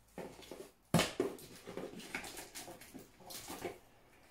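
Rummaging in a cardboard shipping box: items knocking against the cardboard and packaging rustling as a small boxed product is taken out, with a sharp knock about a second in.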